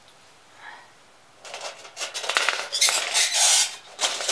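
Thin titanium cone windscreen of a Trail Designs Sidewinder Ti-Tri stove being picked up and handled: irregular metallic rattling and scraping in bursts, starting about a second and a half in.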